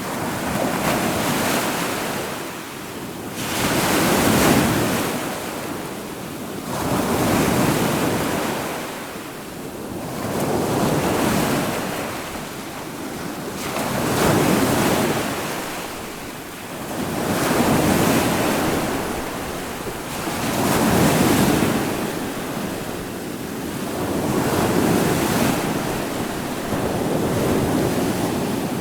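Ocean waves breaking on the shore in a steady rhythm, each surge of surf swelling and falling back about every three to four seconds, with wind noise.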